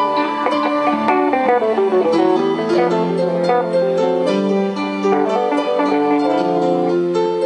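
Live instrumental jam: an electric guitar playing plucked notes over held keyboard chords, with the notes changing from phrase to phrase.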